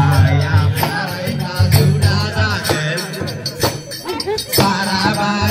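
Live Bodo folk music for Bwisagu dancing: a man singing through a microphone over a steady, loud percussion beat with rattling strokes.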